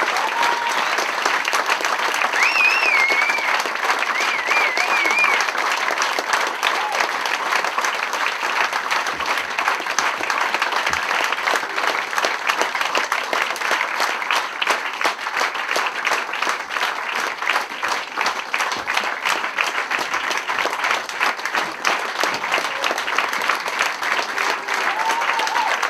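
Audience applauding steadily after a cabaret song, with brief high cheering about three seconds in.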